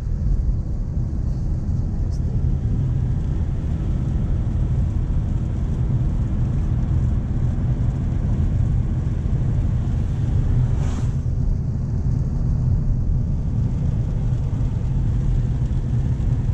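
Nissan Navara D40 pickup heard from inside the cabin while driving: a steady low drone of engine and road noise, with tyre hiss from the wet road. A brief whoosh about eleven seconds in.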